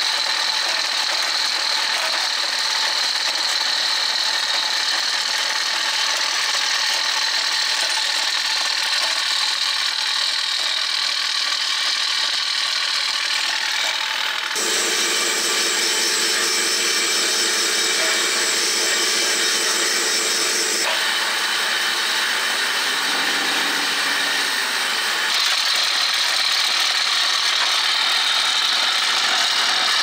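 Model jaw crusher and its conveyor belt's small electric motor running steadily, a mechanical whirr with the rasping grind of rock being crushed. The sound changes abruptly about halfway through and twice more near the end.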